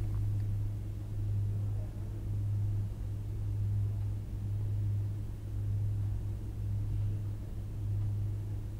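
A steady low hum in the recording's background, gently swelling and fading in level every second or so, with nothing else heard.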